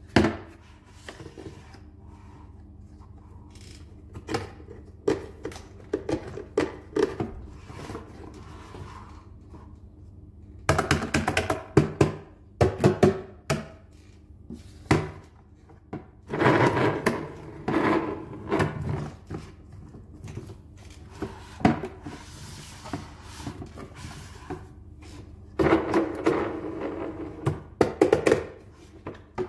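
Hard plastic parts of a large toy dump truck being handled and fitted: a run of knocks, clicks and rattles, opening with a sharp knock, with busier clusters about 11, 17 and 26 seconds in.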